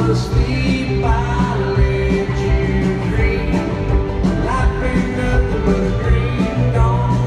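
Live country band performing, with a male lead singer over drums and electric guitars.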